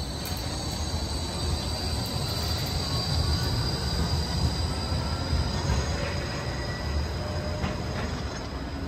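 G:link light rail tram passing close by, its wheels rumbling on the rails with a steady high-pitched wheel squeal that is loudest midway and fades out near the end.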